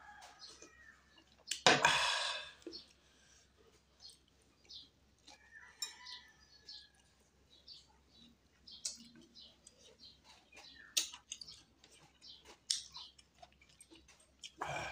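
A person slurping hot sinigang broth from a glass bowl, one loud slurp about two seconds in, then chewing with scattered small clicks and smacks of eating rice and fish by hand.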